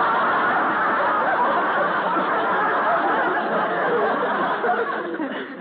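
Studio audience laughing: a long spell of crowd laughter that dies away near the end.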